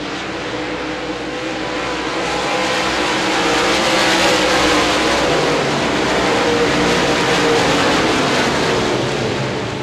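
Dirt-track modified race cars' V8 engines running hard at racing speed, several cars together. The sound grows louder a couple of seconds in and eases off near the end.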